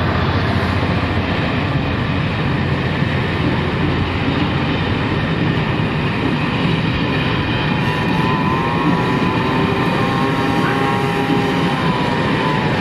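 Coaches of a locomotive-hauled passenger train rolling past close by, their wheels on the rails giving a loud, steady rumble. From about eight seconds in, a wavering wheel squeal joins it.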